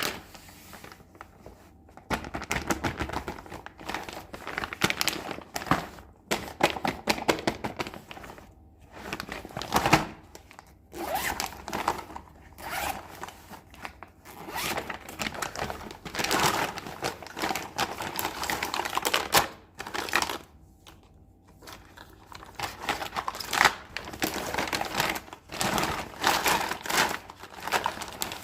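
Hands unboxing a miniature toy kitchen set: packaging crinkling and tearing, mixed with quick clicks and taps, in bursts with short pauses between them.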